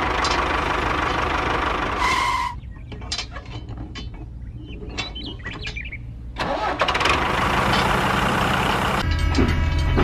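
A tractor engine sound effect for a toy tractor, running and then dropping away after about two seconds with a short beep. A few seconds of small clicks and taps follow, like plastic toy trailer parts being handled and hitched. The engine sound then returns, and near the end a steady humming sound like a train comes in.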